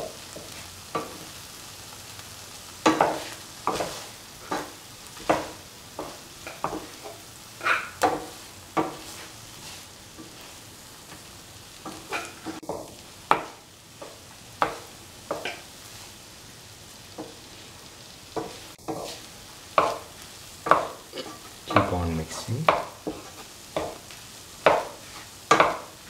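A perforated metal spatula scraping and stirring cooked rice into tomato masala in a pan, in irregular strokes about once a second, with a faint steady sizzle from the low flame underneath.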